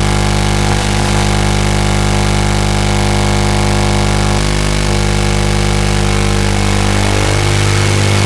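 Steady electronic buzz over hiss from an analog FPV goggle receiver's audio channel: a hum of many fixed tones that shifts slightly about halfway through and again near the end.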